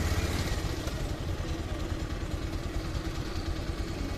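Bajaj motorcycle engine idling, a steady low rumble.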